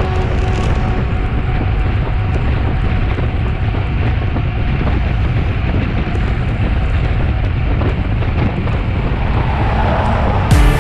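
Steady wind rushing over the microphone, with the running noise of a moving vehicle underneath.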